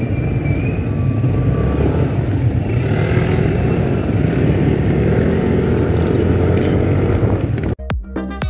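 Riding on a Yamaha scooter: engine and wind noise on the microphone as a steady, loud rumble, with street traffic around. Near the end it cuts off abruptly and music begins.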